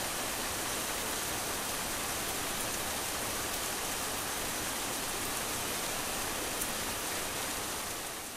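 Steady rain, an even hiss without distinct drops, fading out near the end.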